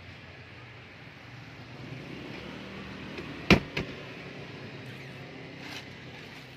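Two sharp knocks about a third of a second apart, halfway through, over a steady low background noise. Near the end comes a brief crinkle of the plastic sheeting covering the rear seats as a finger touches it.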